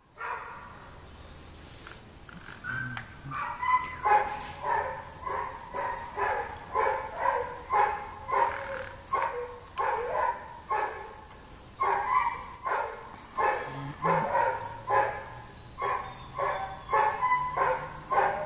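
A dog barking over and over in a steady run, about two barks a second, starting a few seconds in.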